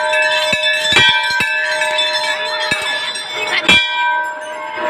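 Hanging brass temple bells struck again and again by several people, their ringing overlapping in a continuous chime. About half a dozen sharp strokes cut through it, the loudest a little before the end.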